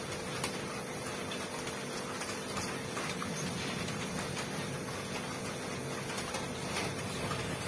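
A steady low hum with faint rustling and scattered light clicks of paper being handled at a desk.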